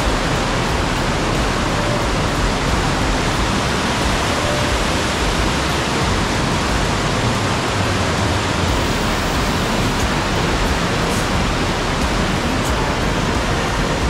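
Mountain stream rushing down a rocky cascade close by: a loud, steady rush of water.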